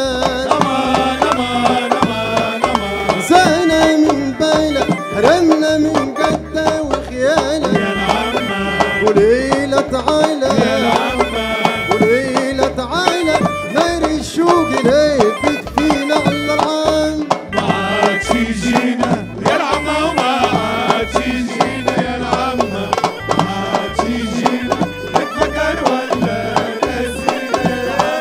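A male singer sings a Tunisian folk song over darbuka goblet drum and bendir frame drums keeping a steady beat.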